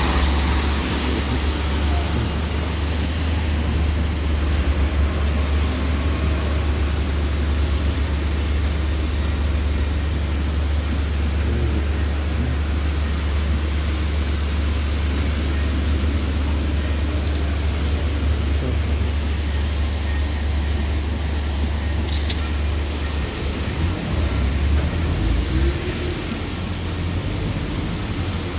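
Street traffic with London buses and cars passing on a wet road, over a steady low rumble that breaks up and eases about 23 seconds in.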